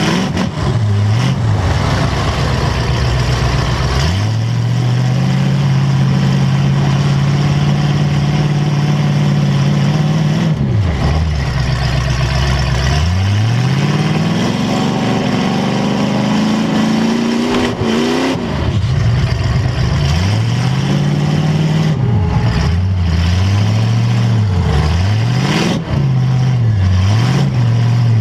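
A demolition derby car's engine, heard from inside the car, being revved up and down over and over. Its pitch holds for a while, climbs long and high in the middle, then swings up and down quickly several times near the end.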